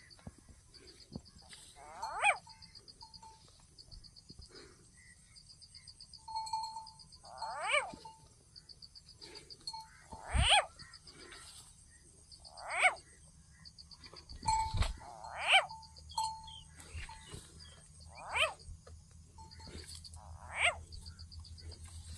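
An unidentified animal calling over and over: a short, loud cry that falls steeply in pitch, repeated about every two to three seconds, with a steady high trill in the background.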